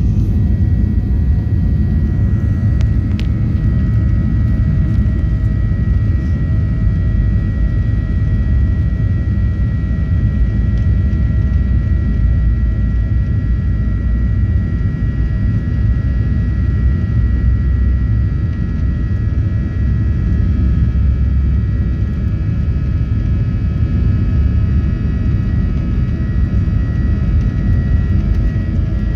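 Jet airliner cabin noise heard from a window seat: the engines running with a steady high whine over a continuous low rumble as the plane taxis on the ground.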